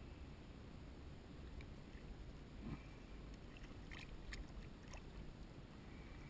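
Small splashes and drips of water as a landing net is swept through shallow water, a quick cluster of them about four seconds in, over a faint steady rumble of wind and water.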